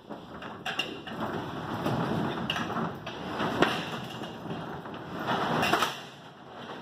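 Corrugated steel roll-up storage unit door being opened and rolled up, rattling, with the loudest stretch a little before the end.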